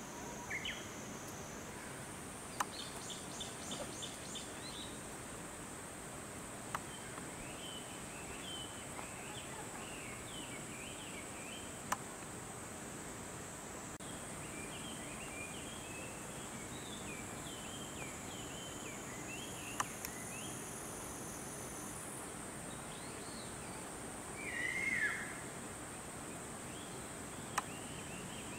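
Outdoor summer ambience: insects droning in a steady high pitch that shifts step-wise a couple of times, with small birds chirping in short runs and a few sharp clicks. A louder call rises and falls about 25 seconds in.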